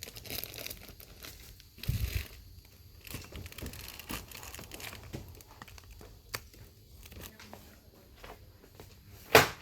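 Crinkling and rustling of packaged goods being picked up and handled, with scattered clicks, a low thump about two seconds in and a sharp knock near the end.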